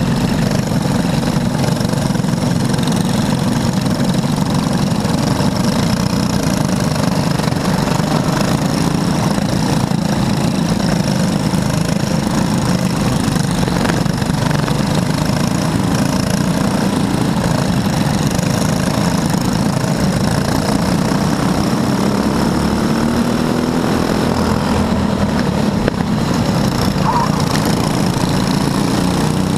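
Racing go-kart engines running hard under way, heard from on board the kart in a close pack of karts: a loud, steady engine drone.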